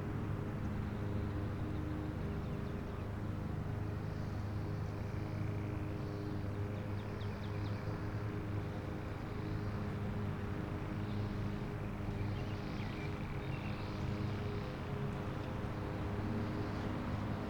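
Steady low mechanical hum with an unchanging pitch, like an idling engine, with faint high chirps over it in the middle.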